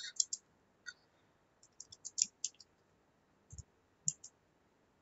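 Computer keyboard keys tapped in short, irregular clusters of quiet clicks as a line of text is typed.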